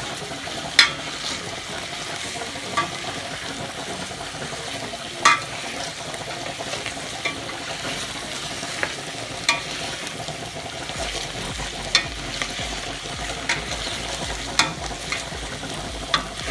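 Chicken and chayote pieces sizzling in hot oil in a pot while being stirred, with the stirring utensil knocking against the pot every second or two.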